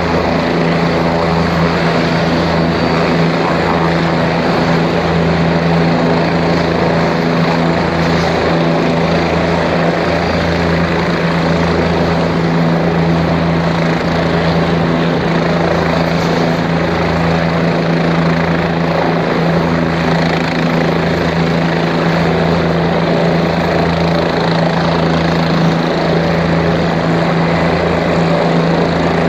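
Medical helicopter running steadily, its engine and rotor noise loud throughout, with a steady low hum and a deeper throb pulsing at an even, slow rate.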